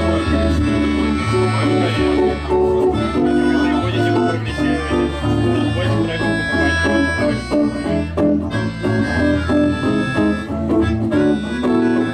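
Live band music: an instrumental passage with guitar and a reedy melodica lead over a pulsing bass line.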